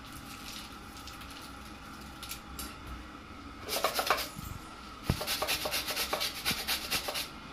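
Quick rubbing strokes: a short burst about halfway through, then a longer run of rapid strokes near the end, over a faint steady hum.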